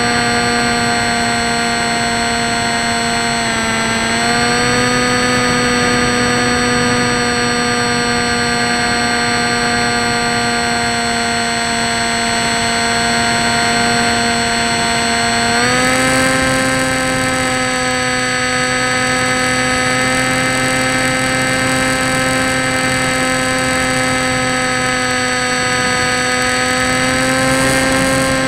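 Tek Sumo foam flying wing's electric motor and propeller in flight, heard from on board as a steady, loud whine. Its pitch steps up about four seconds in and again just past halfway, with a slight rise near the end.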